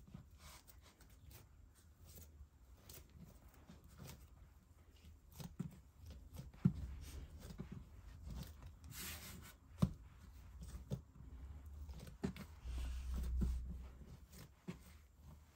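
Faint, scattered knocks, taps and rubbing from things being handled. There is a short hiss about nine seconds in and a low rumble near the end.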